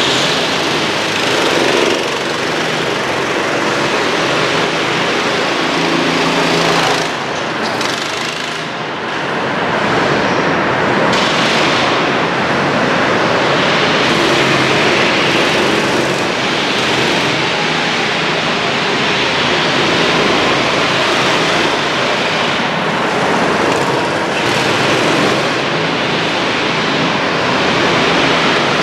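Small go-kart engines running hard as karts lap the track, the noise swelling and fading every few seconds as they pass.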